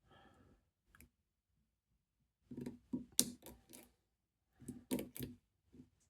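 Pick wire and tensioner clicking and tapping inside a safe's lever lock as the levers are lifted: a single click about a second in, then two clusters of quick metallic clicks, around three seconds in and around five seconds in.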